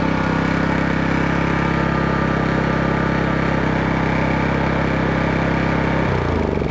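Maxpeedingrods MXR4500i petrol inverter generator's four-stroke engine running steadily. Near the end it is switched off and slows down, its pitch falling as it winds down.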